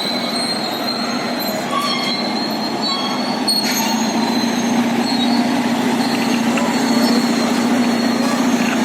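Caterpillar D8L track dozer running, its diesel engine droning steadily under the grind and clatter of the steel tracks, with a steady high whine over it.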